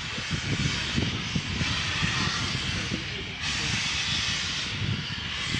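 Steam locomotive hissing steam, the hiss swelling about three and a half seconds in, over a low uneven rumble.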